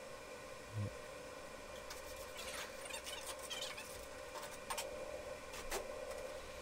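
Faint steady hum of donut-shop kitchen equipment, with scattered light clicks and rustles of work.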